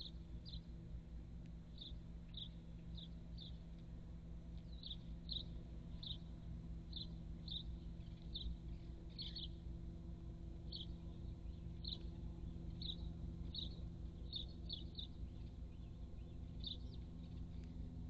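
House sparrows chirping: short, high single chirps at irregular intervals, some in quick pairs, over a steady low hum.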